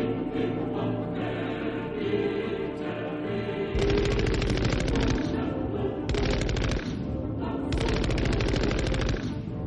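Three bursts of rapid automatic gunfire, the longest about a second and a half, over background choral music.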